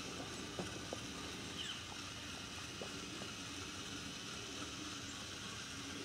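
Quiet outdoor ambience: a steady low rumble, a few light clicks in the first three seconds, and a faint short high chirp about two seconds in.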